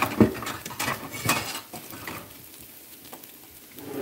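A cooking utensil scraping and clicking against a skillet while Brussels sprouts are stirred and tossed. There is a busy run of scrapes and knocks in the first second and a half, then only a few small ticks.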